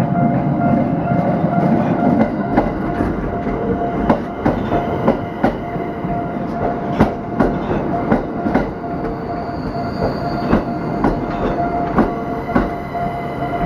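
Tokyo Metro Ginza Line 1000 series train running slowly over a level crossing, its wheels clacking repeatedly over the rail joints, with a steady ringing warning tone from the crossing throughout.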